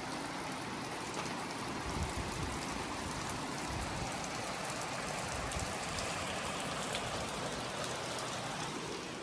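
Heavy rain falling steadily on a paved driveway and parked cars: a dense, even hiss with many small drop hits.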